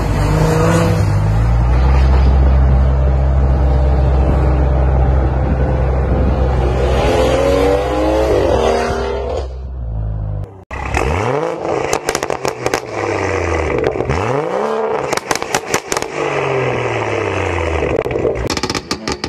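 Modified BMW F-chassis exhausts, running a valved sport axleback and/or catless downpipes. First a 3 Series is driven along the road with a loud, steady exhaust note that rises and falls near the end. After a cut, a 340i's 3.0-litre turbocharged inline-six is revved repeatedly in place, each rev climbing and dropping, with sharp crackles and pops as the revs fall.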